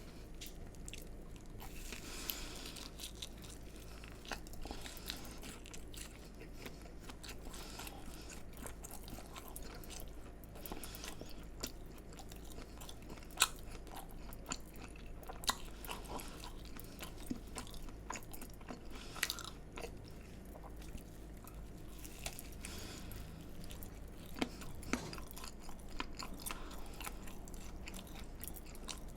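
Close-miked chewing and crunching of fried food, with irregular crisp crackles as the crust breaks between the teeth.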